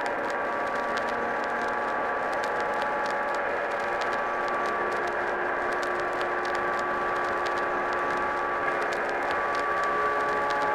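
Heavily degraded, droning ambient music: long held tones that shift slowly, blurred in a haze of hiss, with record crackle clicking throughout.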